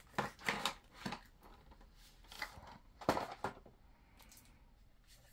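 Short scraping and rustling handling noises of RC LiPo battery packs being unpacked. There are several in the first second and a cluster about three seconds in, then it goes quiet.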